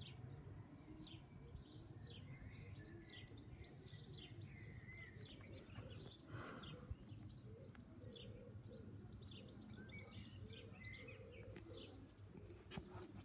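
Faint birdsong: many short chirps from small birds, over a low, steady background rumble.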